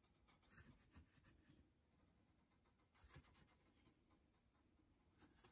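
Near silence, with a few faint taps and scrapes from a small plastic cutter being pressed through soft dough onto a silicone baking mat.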